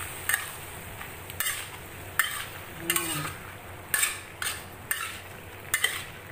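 Metal spatula scraping and tossing chicken breast and bitter gourd around a stainless steel wok, eight or so sharp scrapes at irregular intervals, over the low sizzle of the stir-fry cooking.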